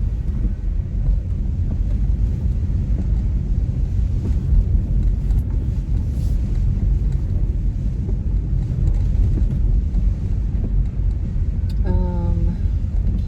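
Car cabin noise while driving: a steady low road and engine rumble, with a voice briefly near the end.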